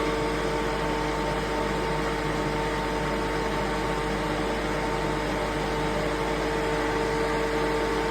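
Refrigerant recovery machine running steadily in self-purge mode, its compressor clearing the last of the hydrocarbon refrigerant from the machine into the reclaim bottle. A steady machine hum with a constant mid-pitched tone.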